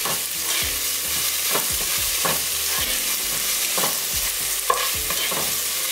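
Diced onions sizzling in oil in an enamelled pot on medium-low heat, with a spatula scraping across the pot as they are stirred, strokes at irregular intervals roughly once a second.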